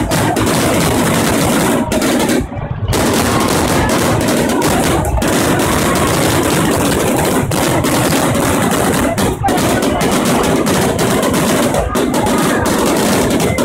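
Fireworks display: a dense, continuous rattle of rapid bangs from shells launching and bursting, with a short dip about two and a half seconds in.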